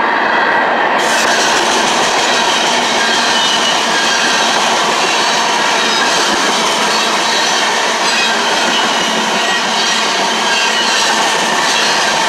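Freight cars of a mixed manifest train rolling past at close range: a steady, loud noise of steel wheels running on the rails.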